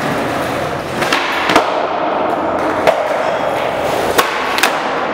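Skateboard clacking on a hard classroom floor as flip tricks are tried: five sharp knocks of the board's deck and wheels landing and popping, over a steady background noise.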